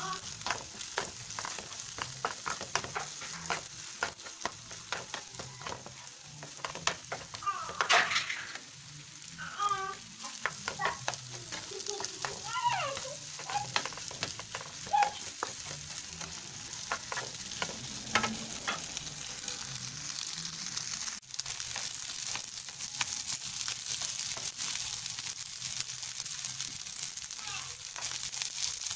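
Egg fried rice with diced carrot sizzling in a frying pan while a plastic spatula stirs and scrapes it: a steady hiss broken by many short scraping strokes against the pan.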